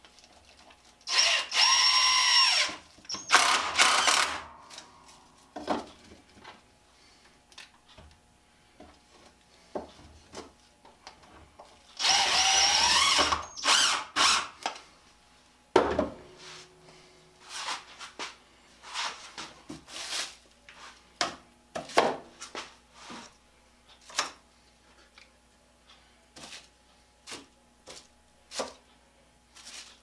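Cordless drill running in two short bursts, spinning up in pitch each time and followed by a few quick trigger pulses, then scattered clicks and knocks of tools being handled on a workbench.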